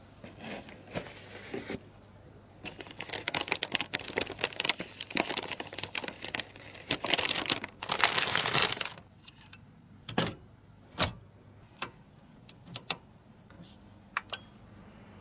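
Close handling noises: a long stretch of dense crinkling and rustling, as of plastic packaging being handled, followed by several separate sharp clicks and taps, such as parts being set down or snapped into place.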